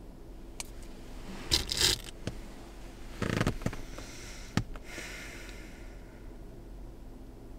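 A few sharp clicks and short rustling scrapes of small things being handled, loudest about two seconds in and again just after three seconds, over a steady low hum.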